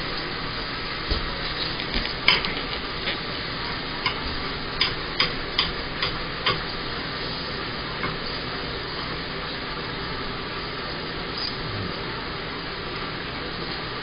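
Knife and fork clicking and scraping against a plate while a chop is cut: a run of short, light clicks over the first six or seven seconds, then only a stray click or two, over a steady hiss.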